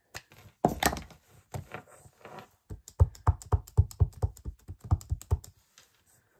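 Craft stamp and stamping supplies handled on a worktable, then a quick run of light knocks, about four a second, from about three seconds in, typical of dabbing a stamp repeatedly onto an ink pad.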